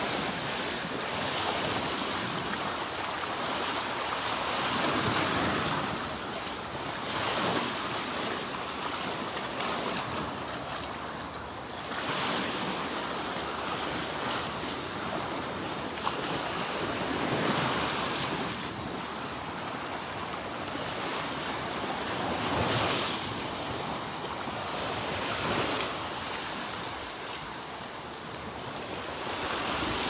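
Small waves breaking and washing up onto a sandy beach. The surf noise swells and falls back every few seconds as each wave comes in.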